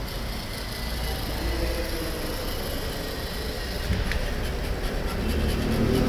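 Small DC gear motors of a toy robot car whirring as it drives across a concrete floor, a steady hum with a low rumble that grows a little louder toward the end.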